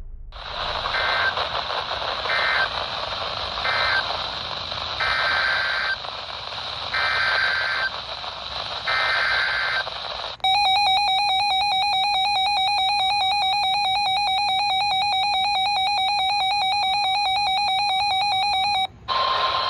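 NOAA Weather Radio receiver sounding an emergency alert: about six short warbling digital data bursts of the SAME alert header over radio hiss, then a loud steady alert tone for about eight seconds that cuts off suddenly.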